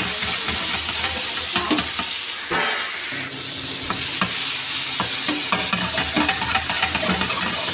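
Marinated chicken pieces sizzling and frying in an oiled pan, a steady hiss with small crackles and an occasional light knock.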